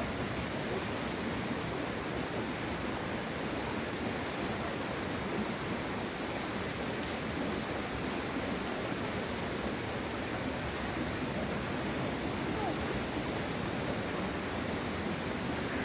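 Steady rushing outdoor noise, even and unbroken, with no distinct events.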